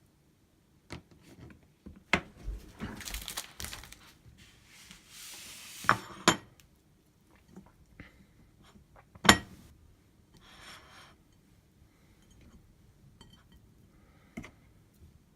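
Cookware and utensils being handled: scattered clinks and knocks of metal and glass, a few sharp strikes (the loudest about nine seconds in), with stretches of rustling between them.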